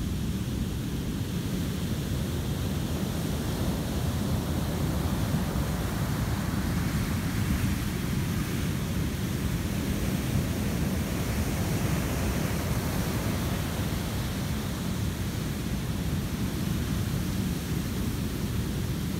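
Heavy ocean surf breaking and washing up a sand beach: a steady, deep rush of whitewater that swells a little partway through.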